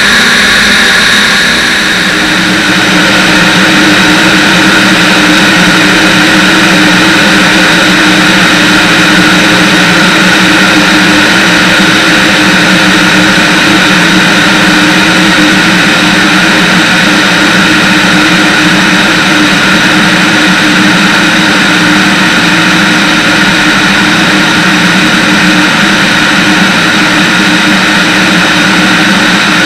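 Van's RV-10's piston engine and propeller droning steadily in flight, with airflow rushing over an outside, wing-mounted microphone. The sound dips briefly about two seconds in, then holds steady.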